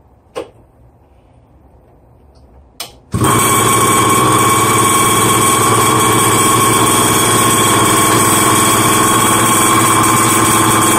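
X1 Cateye pocket bike's small two-stroke engine firing up about three seconds in, after two short knocks, then running loud and steady without revving: the engine is running again after repair.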